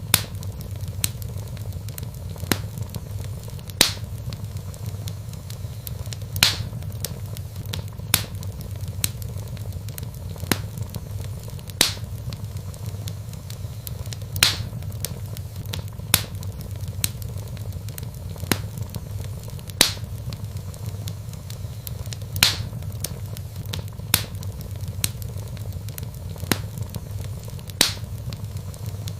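Logs burning in a fireplace: a steady low rumble with sharp crackles and pops, a louder pop every second or two.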